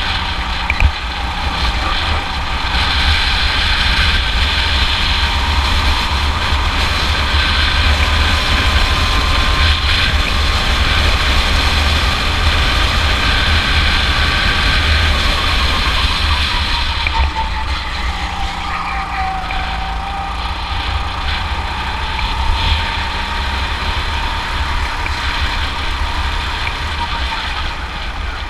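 Go-kart engine running at speed under the driver, heard from on board, with a steady low rumble underneath. Its pitch sags a little past the halfway point as the kart slows, then climbs again as it accelerates.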